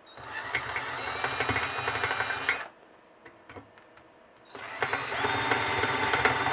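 Electric drill with a 1/8 inch bit grinding the lip off a rivet head, its motor whining with a scraping rattle of the bit on the rivet. It runs for about two and a half seconds, stops, and starts again about four and a half seconds in.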